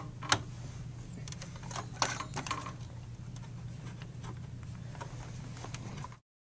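Plastic clicks and knocks from hands pulling the retaining pins and lifting a desktop computer's processor fan and heatsink, over a steady low hum. One sharp click comes about a third of a second in and a cluster of clicks around two seconds in, and the sound cuts off suddenly near the end.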